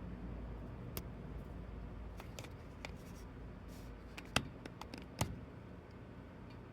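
Scattered small clicks and taps of parts being handled by hand, the two loudest about four and a half and five seconds in, over a low steady hum.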